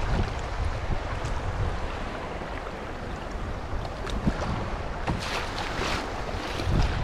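Wind buffeting the microphone over the rush of choppy river water around a canoe, with a few sharper splashes about four to six seconds in.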